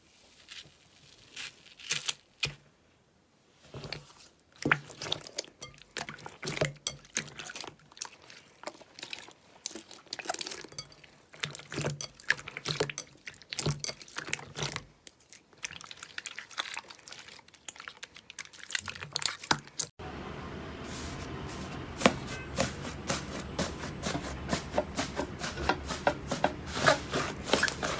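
Slime being squished and worked, making many short sticky, wet clicks and pops. About 20 seconds in, the sound changes abruptly to denser crackling over a steadier background.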